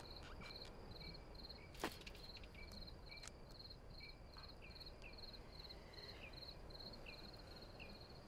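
Crickets chirping faintly at night: an even run of short, high chirps about three a second, with a second, lower chirp repeating about twice a second. A single sharp click about two seconds in.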